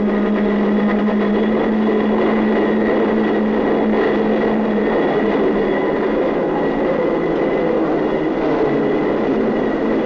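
Bascule bridge lifting machinery running, a steady heavy mechanical rumble with a held low hum through the first half.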